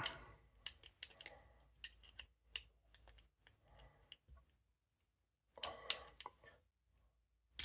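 Small metallic clicks and scratches of a ball pick working inside the lock of a double-locked TCH 860 handcuff, with a louder rattle of clicks near the end as the cuff comes open.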